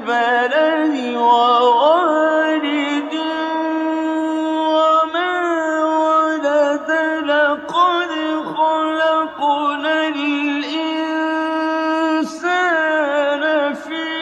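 Male reciter chanting Quran verses in the melodic, drawn-out style: one voice holds long notes and winds through ornamental pitch turns, with a few brief pauses for breath.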